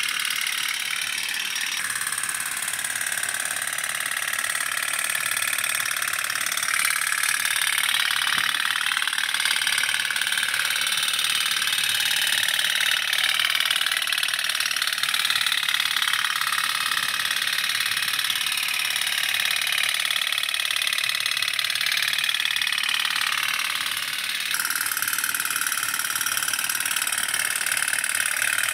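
Several toy pop-pop steam boats running in a bowl of water, their engines making a steady, rapid puttering rattle.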